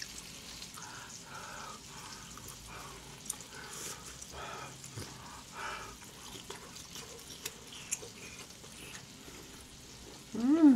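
Close-miked eating of a piece of pan-seared beef steak: soft mouth and chewing sounds with a few small clicks. Near the end comes a short 'mm' hum that rises and then falls in pitch.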